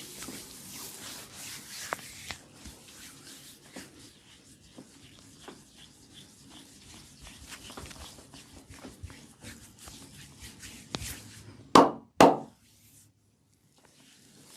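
Massage strokes rubbing over skin, with a soft rustle and many small clicks and taps. About twelve seconds in come two loud thumps half a second apart.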